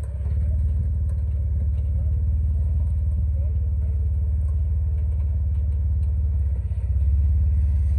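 A vehicle engine running at a steady idle, a deep, even hum that gets a little louder near the end.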